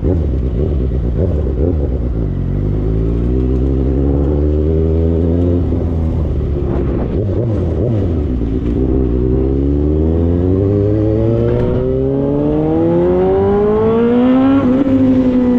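Suzuki GSX-S750's inline-four engine through a JBK slip-on exhaust with the baffle removed, running loud while riding. The note sags at first, then climbs steadily for about five seconds under acceleration. Near the end it drops sharply at a gear change and then sinks slowly.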